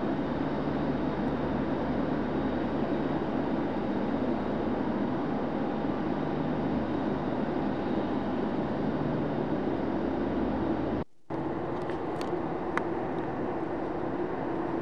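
Steady jet airliner engine noise with a low hum underneath. It drops out for a moment about eleven seconds in, then resumes as a similar steady engine sound with a few faint ticks.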